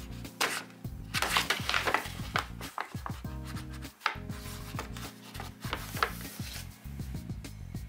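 Paper bag crinkling and rustling in crackly bursts as a cat moves about inside it, loudest in the first couple of seconds and again about six seconds in, over background music.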